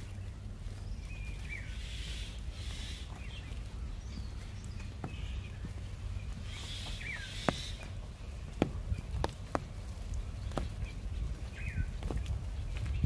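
Birds chirping, with short falling calls about two seconds in, again near the middle and near the end, over a steady low rumble. From about halfway through, a few irregular sharp taps of footsteps on the wet brick path.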